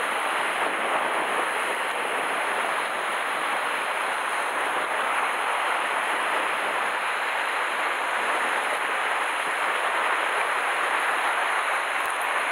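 Sea surf breaking and washing against a rocky shore, a steady rushing hiss with no distinct single waves standing out.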